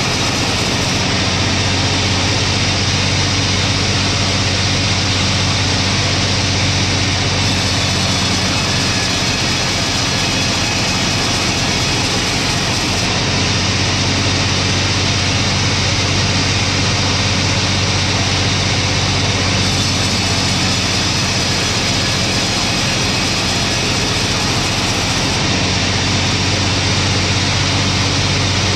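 Engine-driven log saw running steadily under load as it rips a log lengthwise into slab boards: a constant low engine hum under a dense cutting hiss.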